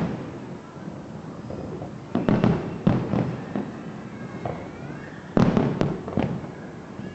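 Aerial fireworks bursting: a series of sharp booms, clustered about two seconds in and again around five and a half seconds in.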